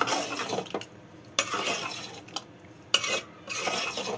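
Metal spoon stirring and scraping thick chickpea curry against the sides of an aluminium cooking pot, in about four separate bursts of strokes with short pauses between.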